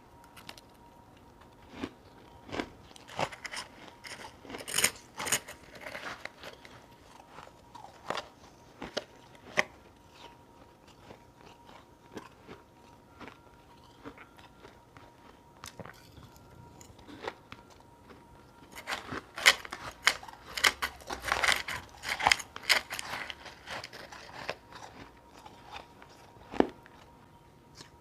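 Close-miked biting, crunching and chewing of powdery ice chunks: sharp, crisp crunches, thick in bursts a few seconds in and again about two-thirds of the way through, with scattered single crunches and chewing between.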